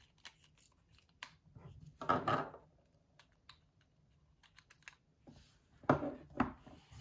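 Small clicks and light clatter of an Abu Garcia Zenon MG-LTX baitcasting reel being handled as its side plate is opened and taken off, with a short scrape about two seconds in and two louder knocks about six seconds in as the reel is set down on the table.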